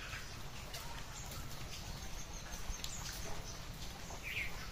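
Outdoor village ambience: a steady low rumble with scattered light clicks, and a short bird call near the end.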